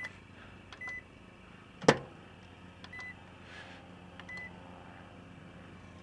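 Microwave oven keypad beeping four short times as it is set, with one sharp click about two seconds in, then the oven's low steady hum as it starts running.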